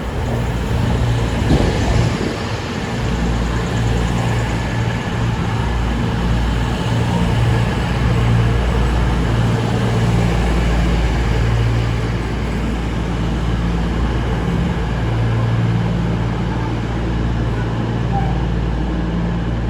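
CrossCountry Class 220 Voyager diesel multiple unit at the platform, its underfloor diesel engines running with a steady low throb.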